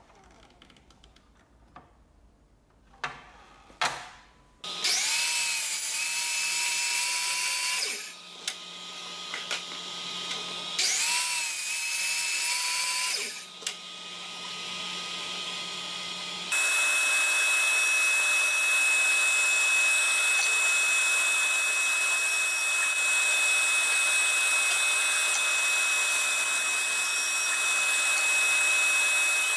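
DeWalt sliding miter saw started twice, its motor pitch rising as it spins up, each run lasting a few seconds as it cuts through a plywood panel. From about halfway a bandsaw runs steadily with a constant high whine.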